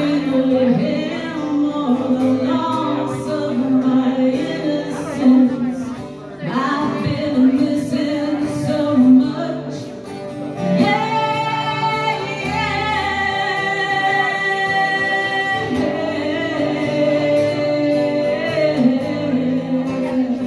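A woman singing a country song into a microphone, with a strummed acoustic guitar behind her. Near the middle she holds one long note for about five seconds.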